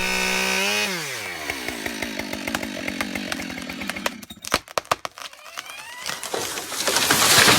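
Husqvarna 572XP two-stroke chainsaw running at high revs, then the revs fall away about a second in. A few sharp knocks follow, and near the end the saw revs up loud again.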